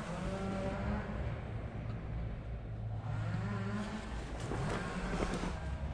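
Daihatsu Esse driving, its engine humming low and rising in pitch twice as the car accelerates.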